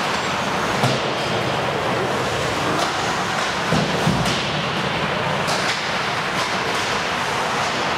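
Ice hockey play on an indoor rink: a steady rushing hiss of skates on the ice, broken by a few sharp clacks of sticks and puck, with a low thud about four seconds in.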